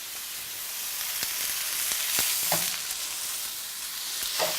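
Ground beef sizzling as it fries in a pan, a steady hiss with a few sharp clicks, like a utensil tapping the pan.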